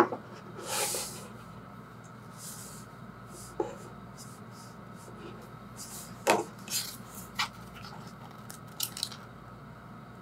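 Small plastic capsule-toy figure and its paper wrapping handled on a wooden tabletop: a few sharp taps and knocks as the figure is set down on the wood, the loudest about six seconds in, with short rustles of paper between them.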